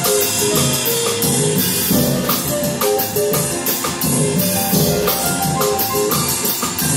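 Live band music: a drum kit played with sticks, with a constant cymbal wash over it, under lines of held pitched notes from the other instruments.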